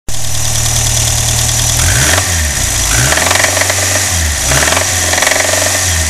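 Renault 5's C3J four-cylinder engine running at idle with a fast, steady rattle.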